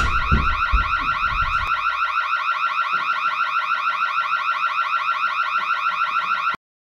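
Electronic alarm sounding a fast, rising warble that repeats about ten times a second, then cuts off suddenly near the end. A few low thumps come under it in the first two seconds.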